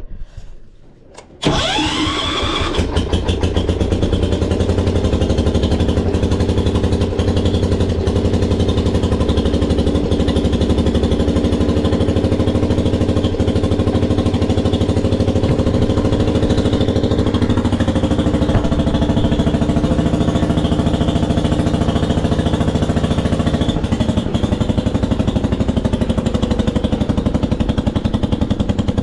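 The 1973 Wheel Horse's 10 hp Kohler K241 single-cylinder engine being started: a short rising starter whine about a second and a half in, then the engine catches and runs steadily. The tractor then drives off under its power.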